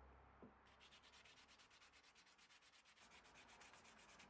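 Wooden handle sanded by hand in quick, even back-and-forth strokes, a soft rasping that starts just under a second in and stops just before the end, after a light knock.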